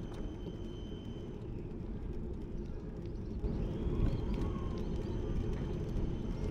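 Outdoor ambience of someone walking: a low rumble of wind on the microphone with faint footsteps. A thin steady high tone stops after about a second.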